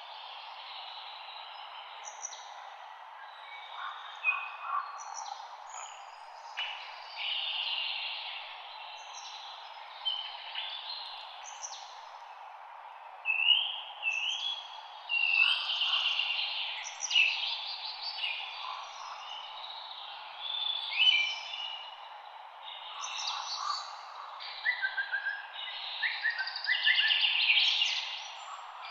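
Several songbirds singing and chirping, their short whistled phrases and trills overlapping, busier and louder from about halfway through. Underneath is a steady, soft hiss of light wind in the leaves.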